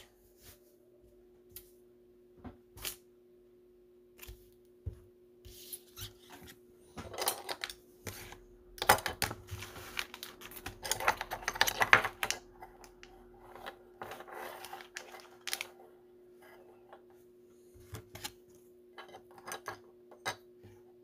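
Rustling of plastic-wrapped card packs and clicks of hard plastic card holders and stands being handled, with a busier stretch of crinkling in the middle. A steady faint hum runs underneath while a space heater is on.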